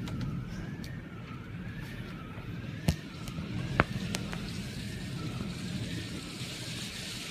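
Heavy downpour and wind rushing, with a siren wailing up and down about once a second behind it. Two sharp knocks stand out near the middle.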